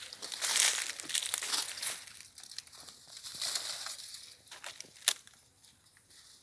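Footsteps crunching through dry leaf litter and twigs in woodland, dense through the first two seconds, then sparser, with one sharp twig snap about five seconds in.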